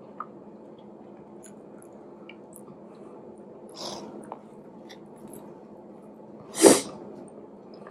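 Close-miked eating: a bite into fried plantain about four seconds in, then one short, loud burst of breath from the eater's nose and mouth near the end, over a low steady hum.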